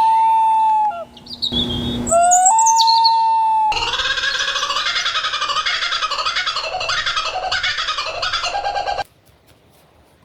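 Recorded bird calls said to be eerie: two long whistled notes that rise and then hold, with a short hiss between them. Then several seconds of rapid, dense chattering that cuts off suddenly about nine seconds in.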